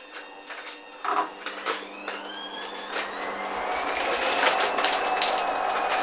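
Hoover washing machine with a thump about a second in, then its motor whining as it climbs steadily in pitch and grows louder: the drum speeding up into a spin.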